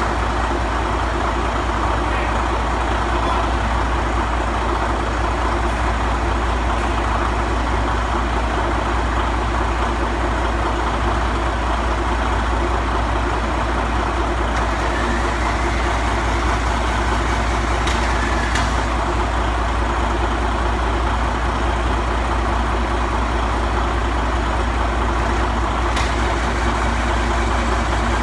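Caterpillar D8 crawler engine running steadily at a constant speed, with a deep hum underneath and a couple of faint clicks in the second half.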